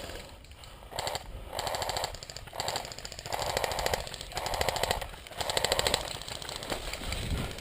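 Airsoft electric rifle firing about six short full-auto bursts, each a rapid buzz of shots lasting half a second to under a second.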